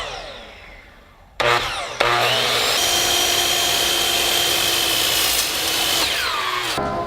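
Power saw starting up suddenly about a second and a half in, running loud and steady with a high whine, then winding down with a falling pitch near the end.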